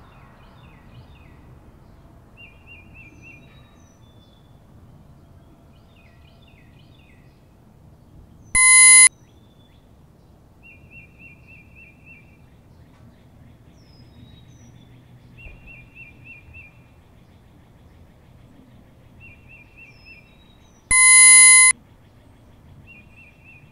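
Outdoor ambience with birds chirping in short repeated trills. Twice, about nine seconds in and again near the end, a loud ringing tone sounds for about half a second and cuts off abruptly.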